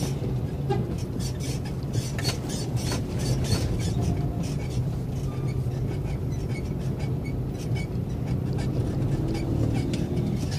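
Cabin noise of a moving vehicle: a steady low engine-and-road drone, with frequent short rattling clicks throughout.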